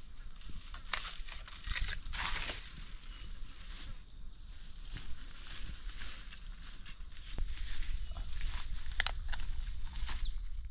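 Steady, high-pitched chorus of insects holding two pitches, one of which fades out near the end, with scattered clicks and rustles of brush.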